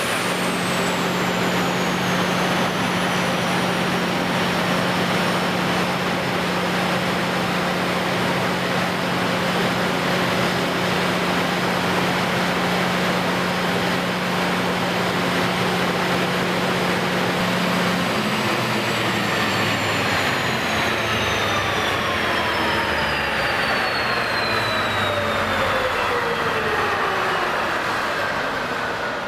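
Kohler 1000 kW diesel generator set running loud and steady, with a steady hum and a high whine. About two-thirds of the way in the hum stops and several whines slide down in pitch together as the set winds down.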